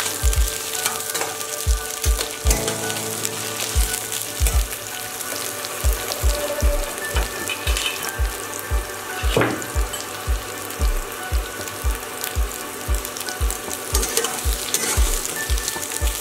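Cut taro stolons frying in hot mustard oil in a stainless-steel pan, with a steady sizzle and the scrape and clatter of a metal spatula turning them. Low thumps repeat about twice a second underneath.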